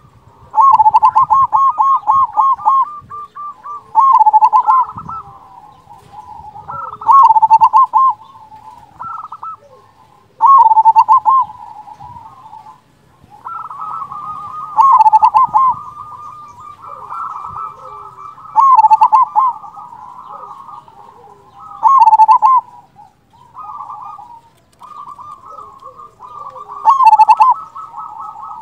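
Zebra dove (perkutut) singing its cooing song: a phrase of quick rolling coo notes about every three to four seconds, each ending in the big 'kung' note. Fainter coos fill the gaps between the loud phrases.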